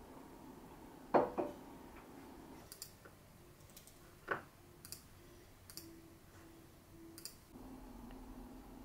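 Objects being handled while cooking: two sharp knocks, about one and four seconds in, with several light clicks between them and after.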